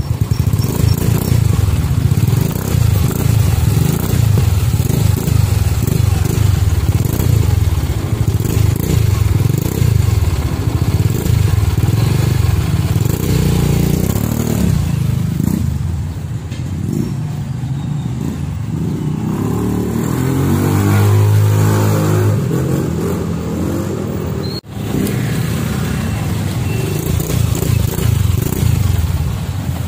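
Motor vehicle engine running with a pulsing, uneven idle, revved up and back down about twenty seconds in.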